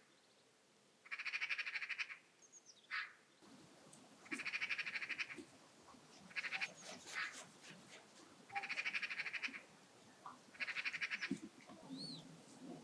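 Birds calling: a harsh, fast rattling call about a second long, repeated five times roughly every two seconds, with short thin chirps between the rattles.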